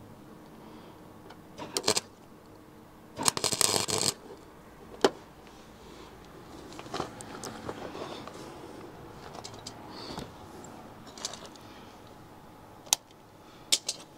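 Gasless flux-core MIG welder striking an arc on thin car-body sheet in two short crackling tack-weld bursts, the second about a second long, followed by a few sharp clicks.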